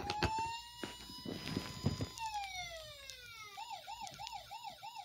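A toy sound puzzle's small speaker plays an electronic ambulance siren: a steady tone for about two seconds, then a falling glide, then a fast warbling wail of about four cycles a second. A few light clicks come in the first two seconds.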